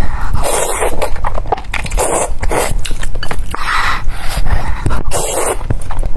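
Noodles being slurped and chewed: four drawn-in slurps about a second and a half apart, with wet chewing clicks between them.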